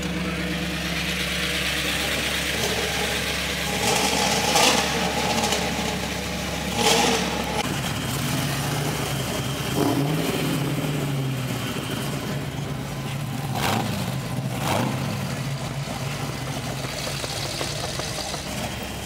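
Car engine idling steadily, its tone shifting about eight seconds in, then revved once briefly with a rise and fall about ten seconds in. A few short, sharp knocks or clicks sound over it.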